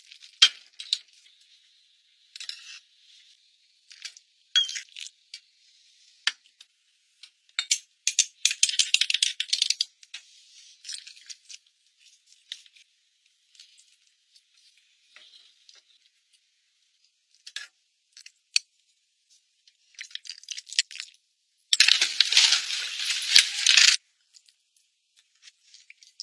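Kitchen handling sounds: scattered clinks and rattles of a metal pot and spoon. Short bursts of scraping or rustling come between them, and a louder rush of noise lasts about two seconds near the end.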